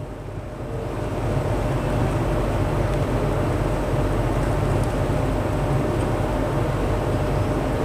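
A motor's steady low hum that swells over the first second or so and then holds, with a faint steady whine above it.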